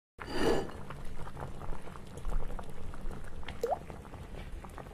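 Liquid bubbling at a boil, a soup-pot sound effect: a brief whoosh to open, then a steady crackly simmer with many small pops and one rising bloop a little past halfway.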